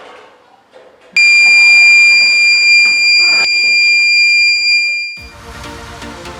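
Buzzer of a homemade transistor water level alarm giving one steady, loud, high-pitched tone for about four seconds, the alarm that signals the tank is full. A few light clicks come before it, and electronic music starts as the tone stops.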